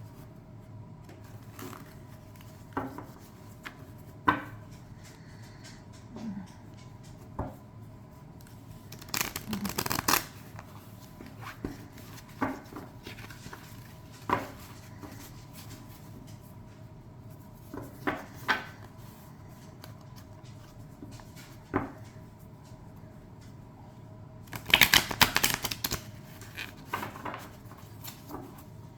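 A deck of thin, glossy oracle cards being shuffled by hand: scattered soft taps and slides, with two louder bursts of shuffling, one about nine seconds in and one near the end.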